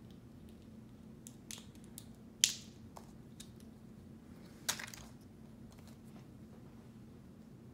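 Small plastic toy pieces and wrapping being handled: a sharp click about two and a half seconds in, the loudest sound, and a brief crinkle near five seconds, with a few fainter ticks, over a low steady hum.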